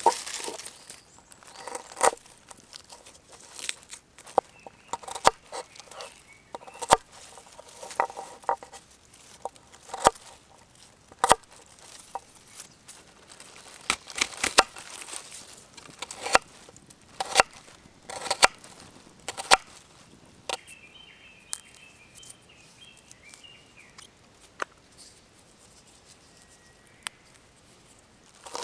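Irregular clicks, knocks and rustling of things being handled at a camp cooking spot. A short, high, pulsing call sounds for a few seconds in the second half.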